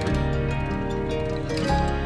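Background music: gentle instrumental with sustained notes over a steady bass.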